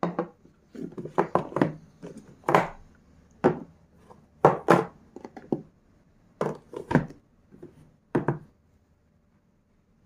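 Hard plastic clacking and knocking as a fridge water dispenser's tank is lifted out of its plastic base stand and set back in. There are about a dozen sharp knocks, irregularly spaced, stopping about two thirds of the way through.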